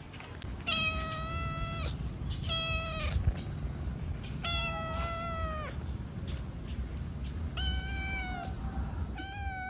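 A cat meowing five times: high, drawn-out meows, each about half a second to a second long and dropping in pitch at its end, the last one still going at the close.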